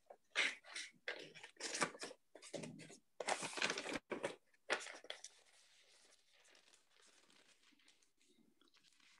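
Paper pages being leafed through: a quick run of rustles for the first five seconds or so, then only faint rustling.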